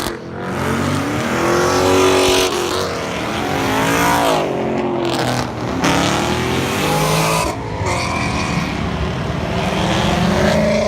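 Car engines revving hard as cars accelerate away, the pitch climbing and dropping several times.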